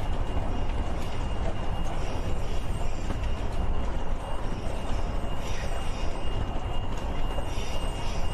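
Steady low rumbling noise with an even level throughout, over a faint, constant high-pitched whine.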